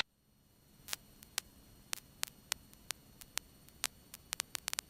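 Near silence on the cockpit radio and intercom audio, broken by faint, irregular clicks and crackles of static that come more often near the end.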